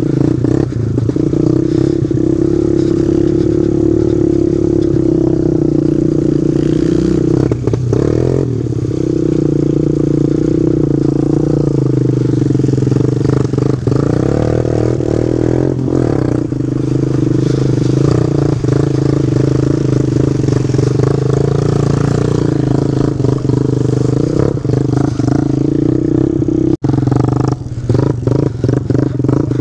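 Pit bike's small single-cylinder engine running close to the helmet camera, the note rising and falling a few times with the throttle over rough ground. A few knocks and rattles from the bike near the end.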